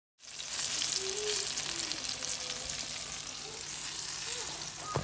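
Corn-flour-coated whiting fillets sizzling in hot oil: a dense, steady crackle that starts about a quarter second in. A single sharp click comes near the end.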